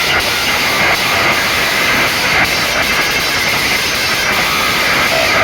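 Very loud DJ sound system playing, so overloaded on the recording that it comes through as a dense, steady hiss with no clear beat.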